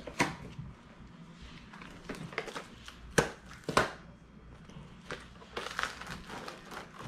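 Cardboard cracker box being torn open, with a few sharp snaps of the tearing flap, two close together about three seconds in. Crinkling of the plastic cracker sleeves inside follows near the end.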